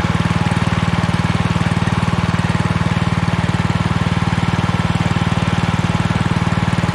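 12 hp Copperhead mud motor running steadily at speed, a fast, even engine pulse.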